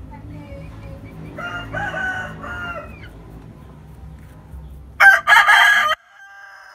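Rooster crowing: a moderate crow about a second and a half in, then a much louder one about five seconds in, lasting about a second.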